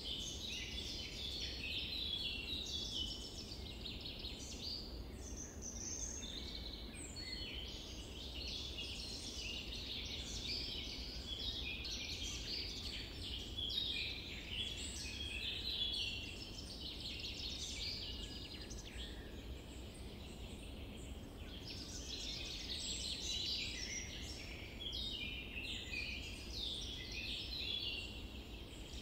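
A dense chorus of many small birds chirping and twittering without pause, over a low steady rumble.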